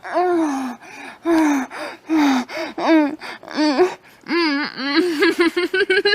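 A high-pitched voice moaning and gasping in pleasure during sex. It gives a series of rising-and-falling cries, about one a second, then quick short cries, about five a second, over the last two seconds.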